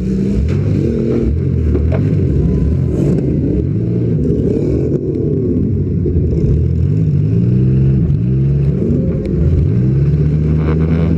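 Demolition derby car's engine revving up and down over and over as it drives, heard close from over the open engine bay, with other derby cars' engines revving at the same time. A few short knocks and clanks break through, one near the end.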